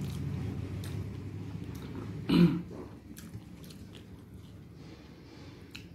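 Chewing and faint crunching of rice with crisp-fried bitter gourd and onion, with a few soft clicks. A short, loud throat-clearing sound comes about two and a half seconds in.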